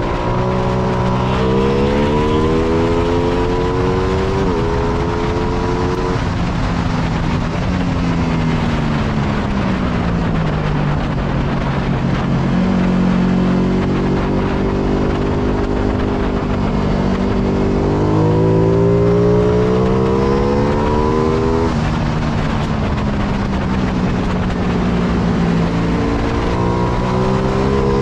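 Ducati Panigale V2's 955 cc Superquadro V-twin at racing speed. The revs climb and break off at two quick upshifts, fall for several seconds as the rider brakes and downshifts, climb to another upshift, fall again and rise once more near the end. Steady wind noise runs over the bike-mounted camera throughout.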